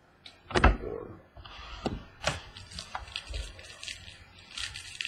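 Trading cards and their packaging being handled on a tabletop: a thump about half a second in, a brief rustle, then scattered sharp clicks and taps, a few each second.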